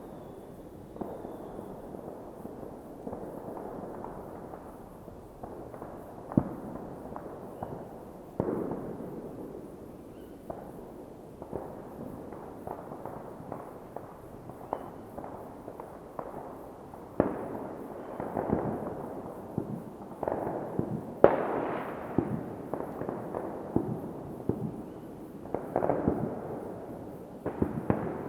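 New Year's Eve fireworks going off all around: a steady scatter of bangs and firecracker cracks, many followed by a rolling echo. They come thicker and louder in the second half.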